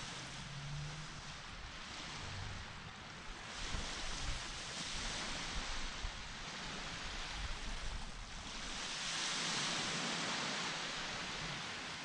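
Surf on a beach: a steady rush of breaking waves that swells and eases every few seconds.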